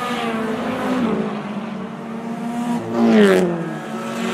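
Race car engines running at speed. About three seconds in, one car passes close and loud, its engine pitch dropping as it goes by.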